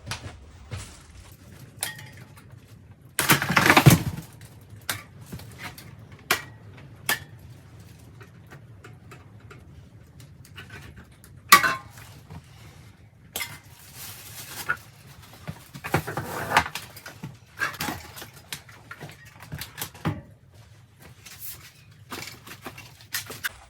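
Irregular snips, clicks and light metallic clinks with short bursts of rustling: packaging on a new electric bike being cut with heavy-duty scissors and pulled away. The loudest rustle comes about three to four seconds in, and there is a sharp snap near the middle.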